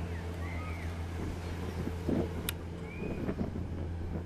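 Boat engine running steadily with a low, even drone. A single sharp click comes about two and a half seconds in.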